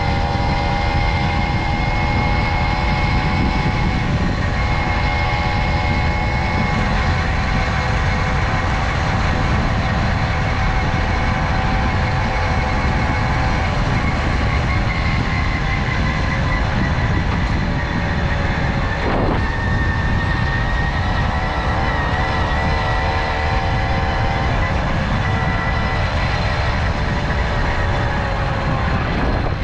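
Tomos Silver Bullet moped's small two-stroke engine running at a steady cruise. Its note drifts slowly up and down in pitch over a strong low rumble of wind and road.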